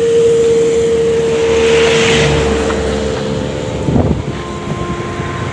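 Road traffic going past, with a steady engine hum that stops about three and a half seconds in and a single knock about four seconds in.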